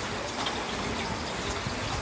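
Steady rain falling: an even, unbroken hiss of water.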